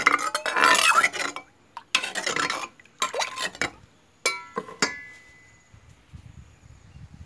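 A spoon scraping and swishing yanang leaf juice around a mortar in three bursts, rinsing out the last of the pounded curry paste. Then come two sharp clinks half a second apart, the second ringing briefly.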